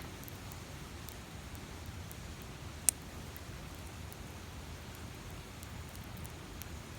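Wood campfire crackling, with scattered sharp pops, one loud pop about three seconds in, over a steady low rumble.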